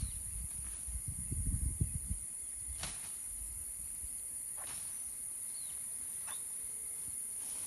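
Steady high-pitched insect buzz, with a few short sharp bird chirps spaced through it, a couple of them dropping slightly in pitch. Low rumbling on the microphone in the first two seconds.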